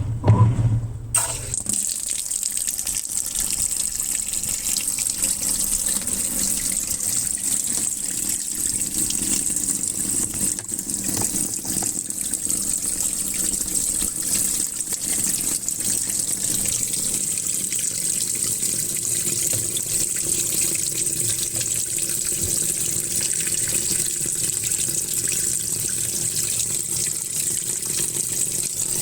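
Muji M-W42D 4.2 kg fully automatic washing machine filling: water starts gushing steadily into the tub about a second in.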